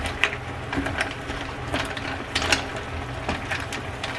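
Shell-on clams being stirred in a frying pan with wooden chopsticks: an irregular run of clicks and taps as shells and chopsticks knock against each other and the pan, the loudest about two and a half seconds in. A low steady hum lies underneath.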